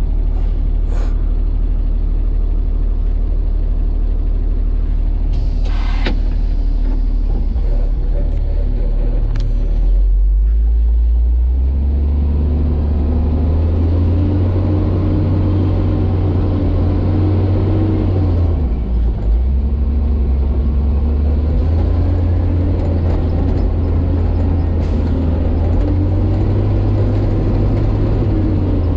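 Diesel locomotive engine rumbling heavily, its pitch climbing, holding and dropping back twice as the throttle is opened and eased. A few sharp knocks come in the first ten seconds.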